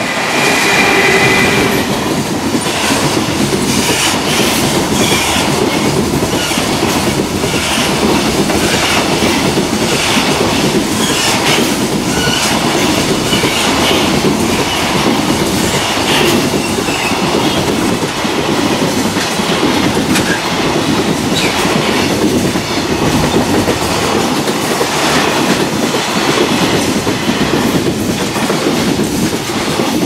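Long freight train passing close by, its wagon wheels clattering over the rail joints in a continuous run of clacks.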